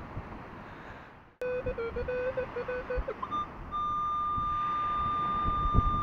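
Minelab Equinox 800 metal detector signalling a buried target: a wavering low tone mixed with short higher beeps, then a steady high tone held through the second half as the detector's pinpoint mode marks the target's centre. Wind rumbles on the microphone for the first second or so and cuts off abruptly.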